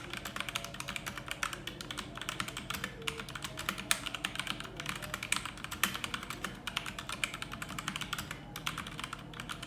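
Fast, continuous typing on a mechanical keyboard fitted with Outemu Black linear switches: a dense stream of key clacks, many a second, some struck louder than others.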